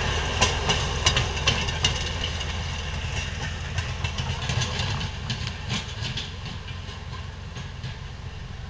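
Small motorized rail car (track speeder) towing a passenger trailer along the rails: its engine runs steadily and the wheels click sharply over the rail joints in the first few seconds, all fading as it moves away.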